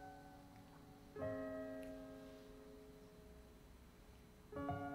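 Soft, slow piano music: two sustained chords, one about a second in and another near the end, each left to ring and fade.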